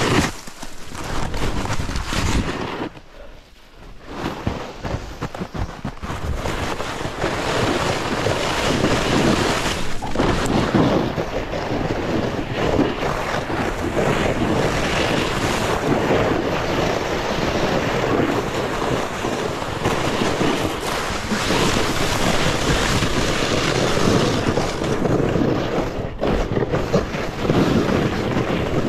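Wind rushing over the microphone and a snowboard sliding and carving through snow on a downhill run, with a short lull about three seconds in before the rushing noise settles in steadily.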